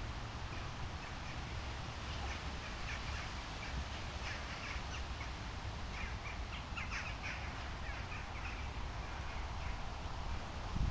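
Birds in the trees giving many short, quick calls, bunched mostly in the middle stretch, over a steady low rumble.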